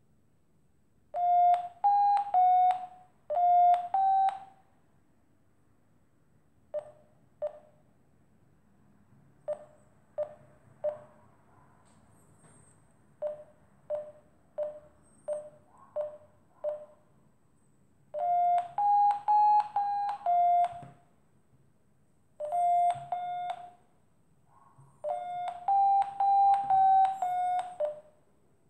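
Electronic variometer beeping: trains of short, rapid beeps whose pitch steps up and back down, with slower, lower single beeps between them in the middle. This is the variometer's climb tone, which beeps faster and higher as rising air is sensed.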